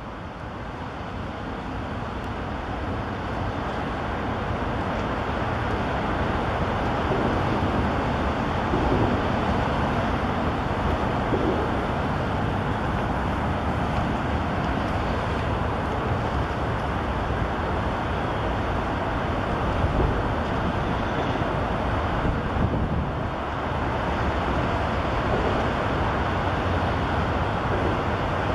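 Steady highway traffic noise, an even rushing din of passing vehicles that fades in over the first few seconds.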